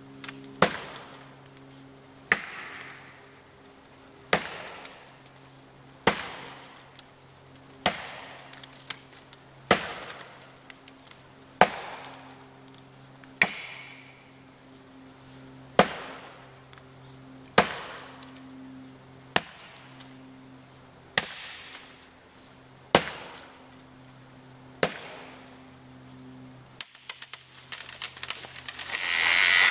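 Chopping blade striking into a standing green sapling with single blows, about one every two seconds. Near the end comes a burst of cracking and crackling as the trunk breaks over and falls through the brush.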